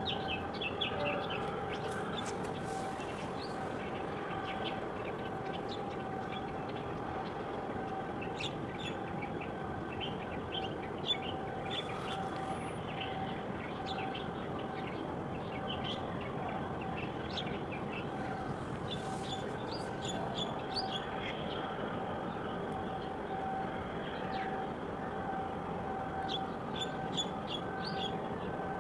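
Small birds chirping in short, quick runs, four or five times, over a steady mechanical harbour hum with a held tone.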